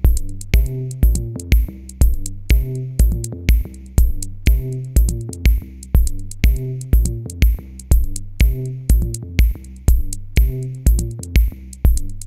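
Electronic background music with a steady drum-machine beat, about two beats a second, over a bass line.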